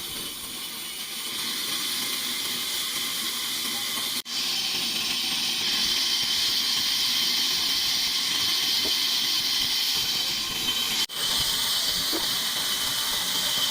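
Saw cutting through wood: a steady high-pitched hissing noise that cuts out for an instant twice.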